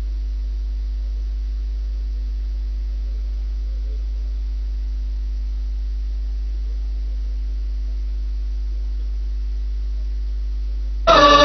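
Steady low electrical hum from the sound system, with a few faint steady tones above it. Near the end, loud chanted music cuts in suddenly.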